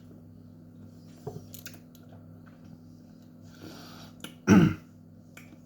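A man's mouth and throat sounds while tasting a chili tincture: a few faint lip smacks, a breath in, then one short, loud vocal outburst with falling pitch about four and a half seconds in.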